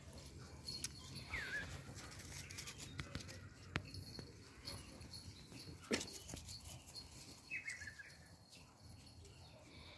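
Small puppies moving over grass and dry fallen leaves: soft rustling with a few sharp crackles, the loudest about six seconds in. Two short high calls falling in pitch, about a second in and near the end.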